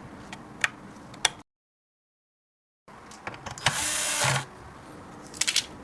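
Handling noise while PC parts are fitted: a few sharp clicks, then a short rush of noise about four seconds in, then a quick cluster of clicks, all over a low steady hum.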